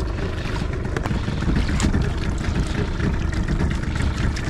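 Steady low rumble and water noise of a small fishing boat at sea, with a few light clicks about a second and two seconds in.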